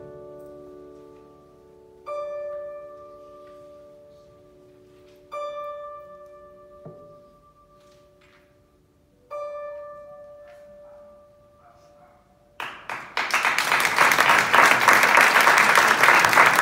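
Ukrainian bandura played slowly: three single plucked strikes a few seconds apart, each left to ring and fade, as the closing notes of the piece. About four seconds before the end, audience applause breaks out and is the loudest sound.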